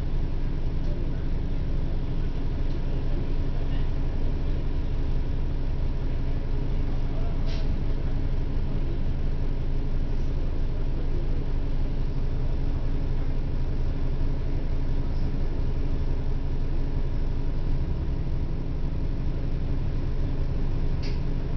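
Cabin sound of a 1996 Orion V transit bus: a steady drone from its diesel engine and drivetrain, with a faint steady whine. Two brief clicks or rattles come about a third of the way in and again near the end.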